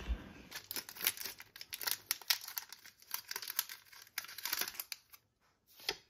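Foil wrapper of a Pokémon trading-card booster pack crinkling and tearing as it is torn open by hand: a dense run of crackles that dies away about five seconds in, then a couple of last rustles.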